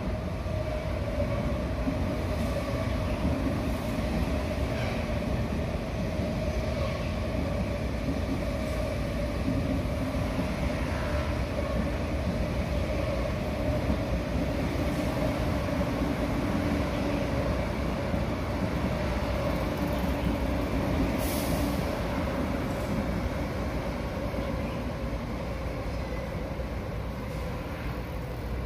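Steady rumble of a moving vehicle with a held humming tone, and a short hiss about three quarters of the way through.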